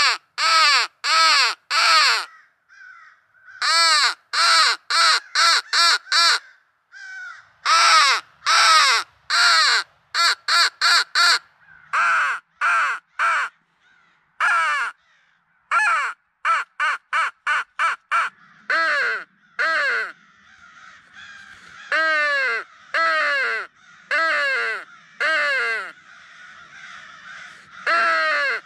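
Mouth-blown crow call sounding a run of loud, harsh caws in series of three to seven, some quick and clipped, some drawn out, with short pauses between the series. Fainter caws come in some of the gaps.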